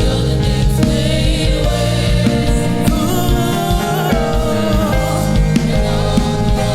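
Gospel song with singing over instrumental accompaniment and a steady low beat.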